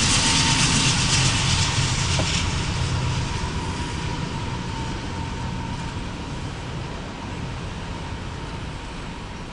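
Empty autorack cars of a CSX freight train rolling past, a steady rumble of wheels on rail. It is loudest at first, with a hissing roar that drops away a couple of seconds in, then fades gradually as the train moves off.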